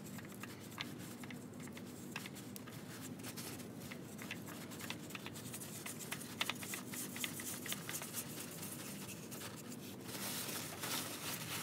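Gloved hand spinning a new Mobil 1 oil filter onto its threaded mount, bringing it up hand tight: small scratchy clicks and rubbing of glove on filter can. A louder rustle comes in near the end.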